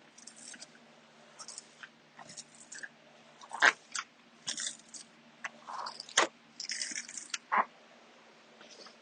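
Squeegee scraping over a vinyl wall decal and its transfer tape during application, the tape crinkling: a string of short, irregular scrapes and crackles with a few sharp snaps, the loudest a little over a third of the way in.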